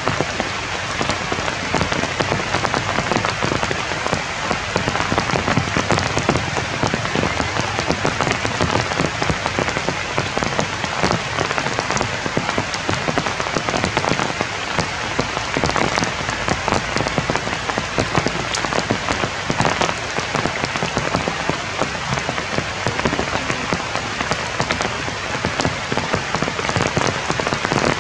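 Steady rain falling on forest leaves and branches: an even hiss of many close drops.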